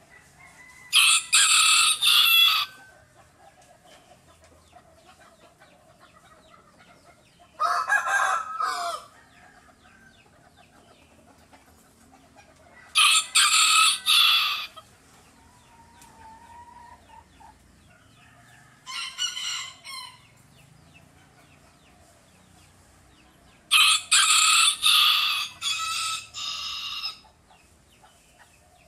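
Rooster crowing, several loud crows a few seconds apart: about a second in, midway, and a longer one near the end. Between them come a shorter, lower-pitched call and a fainter one.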